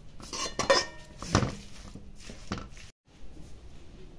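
Steel spatula scraping and clinking against a kadhai as grated carrot and melting sugar are stirred: a few short scrapes and knocks, then a brief gap about three seconds in and quieter sound after.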